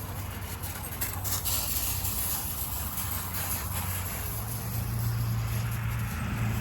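A steady low rumble under a hiss, growing louder about five seconds in.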